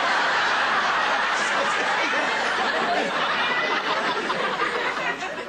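Studio audience laughing, starting at once and slowly dying away toward the end.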